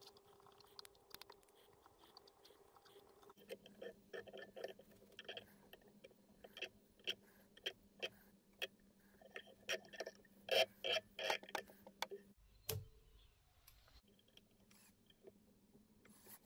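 Faint, irregular ticks and scratches of sewing thread being wrapped and pulled tight over bucktail on a jig hook, over a low steady hum. A single dull thump comes about three-quarters of the way through.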